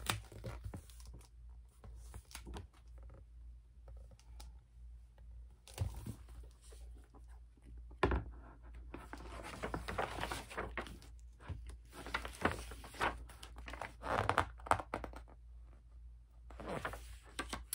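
Paper rustling as the pages of a picture book are handled and turned, with a few soft thunks.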